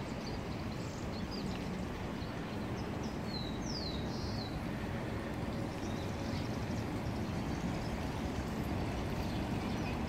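Steady low hum of distant city traffic. About three to four seconds in, a bird gives three short falling chirps.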